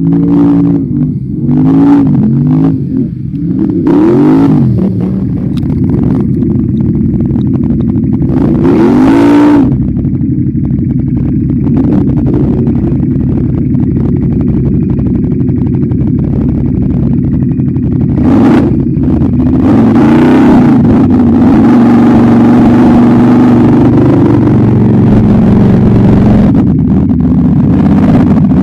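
ATV engine revving hard in repeated rises and falls for the first ten seconds, then running at a steadier pitch with one more rise about two-thirds of the way through.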